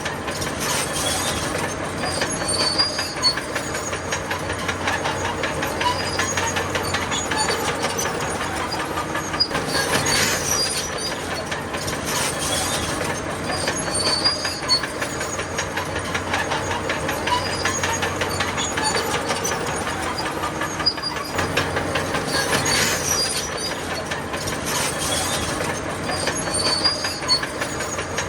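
Crawler bulldozer working: its diesel engine runs steadily under the constant clatter and squeal of steel tracks.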